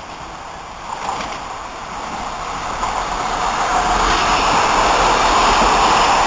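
Connex X'Trapolis 100 electric suburban train approaching and then running past close by. Its wheel and rolling noise on the rails grows steadily louder and is loudest from about four seconds in, as the carriages go by.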